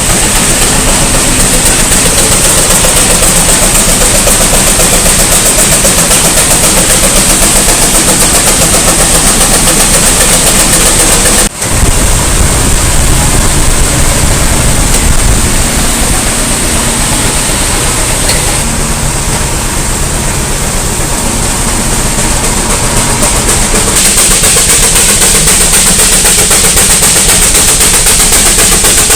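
Steam engine running and working belt-driven machinery, with a steady high hiss; the sound cuts and changes abruptly about a third of the way through.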